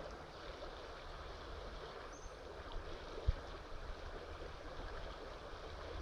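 Faint, steady rush of flowing river water, with a single dull thump about three seconds in.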